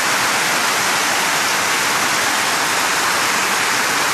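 Floodwater rushing down a garage entrance ramp and pouring into a flooded underground garage: a steady, loud rush of water.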